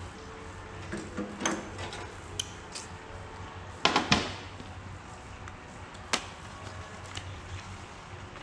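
Hand tools and metal parts being handled: scattered clicks and clatters, the loudest a quick run of three sharp knocks about four seconds in and a single sharp click about two seconds later.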